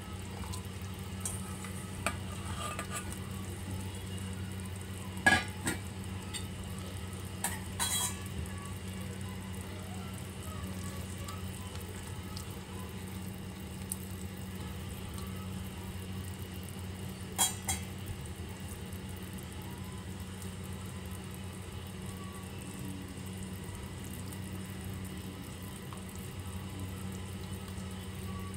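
Saucepan of luffa soup heating on the stove, with a steady low hum and faint hiss. A few sharp clinks of a plastic ladle and other utensils knock against the stainless steel pot as the vegetables are stirred, the loudest about 5 and 17 seconds in.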